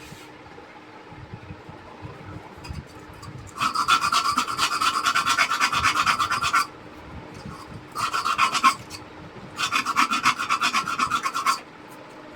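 Rapid back-and-forth scraping of a rice cooker's metal wire connector, rubbing it clean of burnt residue so the joint will not stay loose and spark. It comes in three spells: about three seconds, a short one, then about two seconds.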